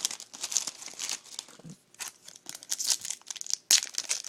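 A trading card pack's wrapper being torn open and crinkled, in irregular crackling bursts with a brief pause midway and a sharp rip near the end.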